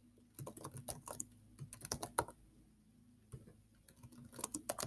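Computer keyboard typing: quiet runs of keystrokes with short pauses between them, and a final quicker run near the end.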